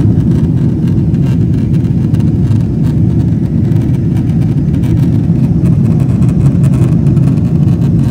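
Jet airliner cabin noise in flight: a loud, steady, low rumble of engines and rushing air, heard from inside the cabin.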